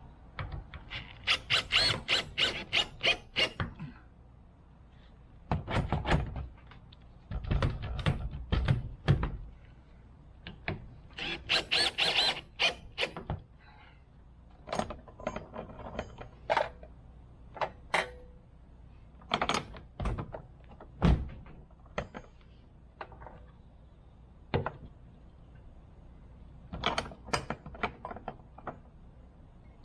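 Metal parts being knocked and tapped, in quick runs of strikes and then single knocks.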